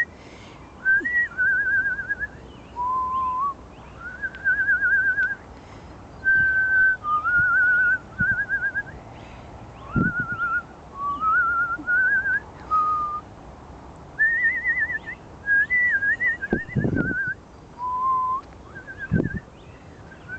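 A person whistling a tune in short phrases of about a second each, the single clear tone warbling and trilling as it steps up and down, with brief pauses between phrases.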